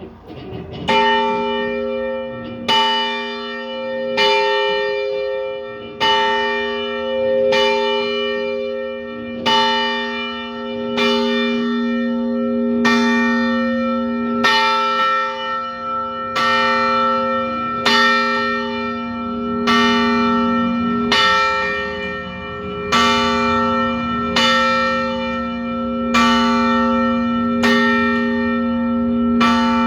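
A single church bell rung by hand, tolling steadily at about one stroke every second and a half to two seconds, each stroke ringing on into the next; the first stroke comes about a second in.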